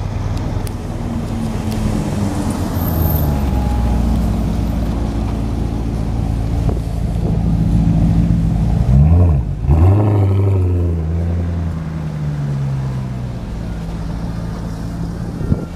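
Maserati GranTurismo's V8 engine running as the car drives past close by, with a sharp drop and rise in engine pitch about nine seconds in, the loudest moment. The pitch then falls away as it pulls off.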